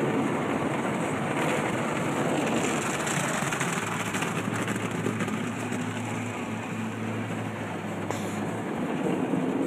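Automatic car wash machinery heard from inside the car: a steady rush of water spray and spinning brushes working over the body and windows. A low steady hum joins about four seconds in and stops about a second before the end.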